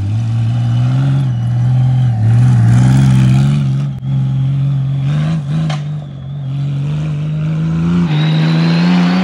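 Honda Gold Wing motorcycle engine working hard as the heavily loaded bike climbs a steep dirt hill, its revs rising and falling, briefly dropping about four seconds in. A higher whine joins in near the end.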